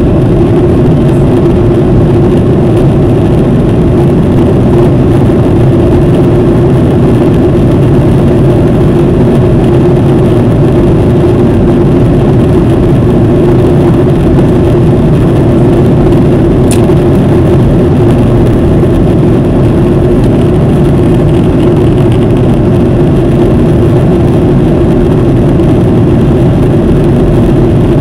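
Steady cabin noise of a Boeing 737 jetliner in level flight: the constant roar of the jet engines and air rushing past the fuselage, with a steady low hum.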